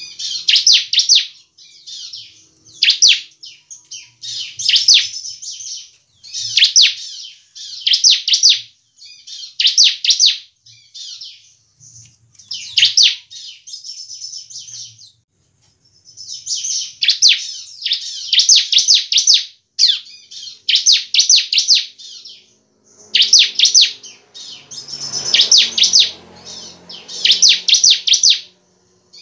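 Bar-winged prinia (ciblek) singing: loud bursts of rapid, high, sharp notes repeated every second or two, with a couple of brief pauses.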